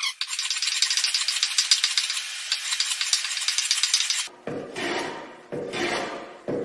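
A rapid, high rattling for about four seconds, then a hand plane cutting a chamfer along the edge of a wooden board in two scraping strokes about a second apart.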